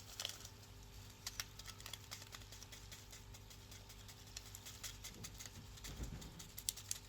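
Faint, scattered light clicks and taps, irregular and spaced apart, over a low steady hum.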